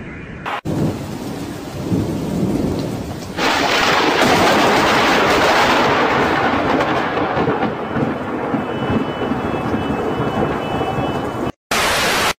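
Thunderstorm: a low rumble of thunder, then from about three and a half seconds in a sudden loud, steady hiss of heavy rain. It stops briefly near the end and gives way to a short loud burst of TV-static noise.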